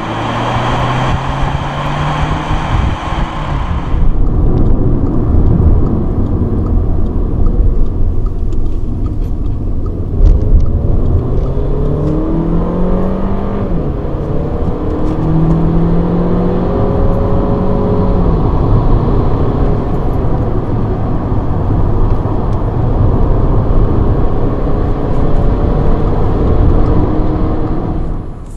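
Audi A3 1.4 TFSI four-cylinder turbo petrol engine pulling under acceleration, with road and wind hiss, first heard from outside the car, then from inside the cabin after about four seconds. Halfway through, the engine note climbs and drops sharply at a quick S tronic upshift, then rises steadily again over the road noise.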